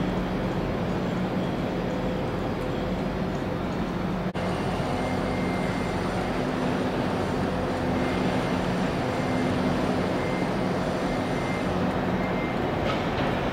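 Steady drone of an electric train with a constant low hum and faint higher whine, broken for an instant about four seconds in, after which an LNER Class 91 electric locomotive stands at the platform, its drone carrying on steadily.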